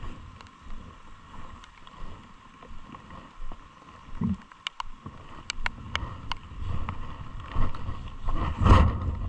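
Wind gusting on a phone microphone in wet weather: an uneven low rumble with scattered sharp taps and a steady faint high drone behind it. A stronger gust or knock comes near the end.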